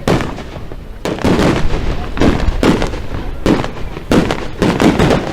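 Aerial fireworks shells bursting in quick succession, about eight loud booms in five seconds, each with an echoing tail.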